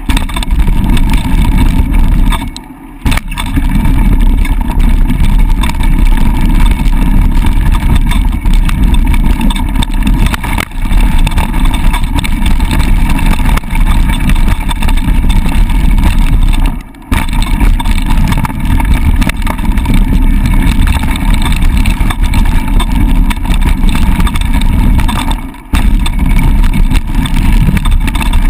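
Loud wind buffeting on an action camera's microphone mixed with the rumble and rattle of a mountain bike's tyres running fast over a dirt and gravel trail. The noise drops away briefly three times: about 3 seconds in, about 17 seconds in, and near the end.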